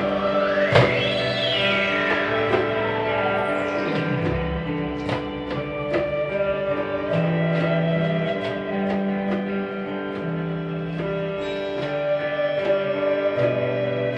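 Live band playing an instrumental passage: plucked guitar notes over a steady held drone, with a sweeping pitch glide that rises and falls about a second in.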